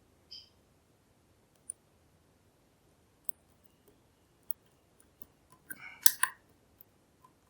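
Faint metallic clicks and taps of a lock pick probing the pins of a NEMEF NF4 dimple lock, scattered singly, with a short louder clatter about six seconds in. The pins are being tested one by one and are all loose, not binding.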